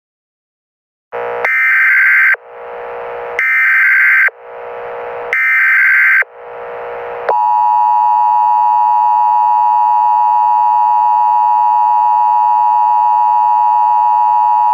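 Emergency Alert System tones: three digital SAME header data bursts of about a second each, a second apart, each trailing off with an echo. About seven seconds in, the steady two-tone EAS attention signal begins and holds.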